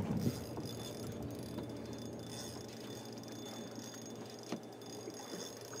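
Light spinning reel ticking and whirring under the strain of a hooked jack crevalle, with one short knock about four and a half seconds in.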